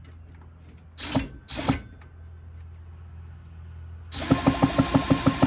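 A drill spinning an old McCulloch chainsaw engine over by its flywheel nut, to check for spark. Two short blips come about a second in, then from about four seconds a steady, loud whirring run with a rapid regular pulsing, about eight a second.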